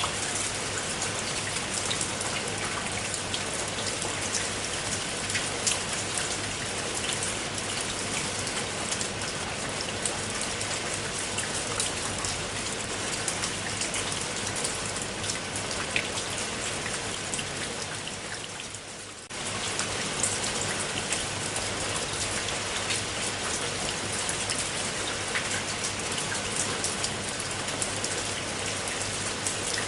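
Steady rain falling on a surface, a dense even patter with many individual drop ticks. About two-thirds of the way through it fades down briefly, then cuts straight back in at full level.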